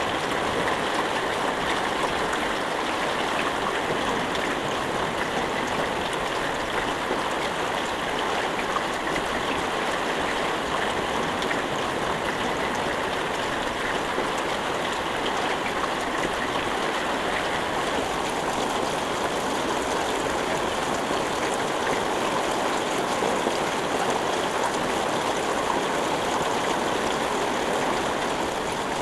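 Steady rain falling, a dense, even hiss of drops with no thunder.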